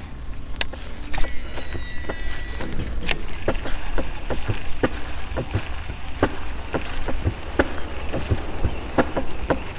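Baitcasting reel on a cast: the spool spins with a thin high whine for about a second and a half, a sharp click follows, then the reel ticks about three times a second as its handle is cranked on the retrieve. Low wind rumble on the microphone throughout.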